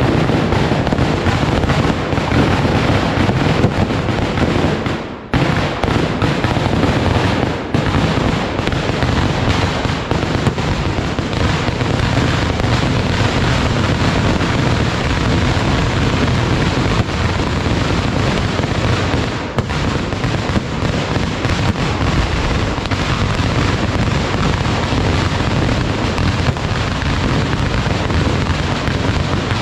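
Kerala pooram fireworks (vedikettu): a loud, dense, unbroken barrage of firecracker blasts, with a brief lull about five seconds in.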